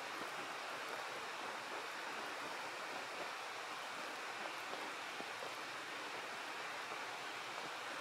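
Steady, even rushing noise with no distinct sounds standing out.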